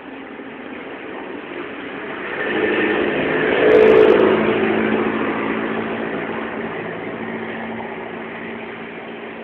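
A motor vehicle passing by: its engine and road noise swell to a peak about four seconds in, then fade slowly.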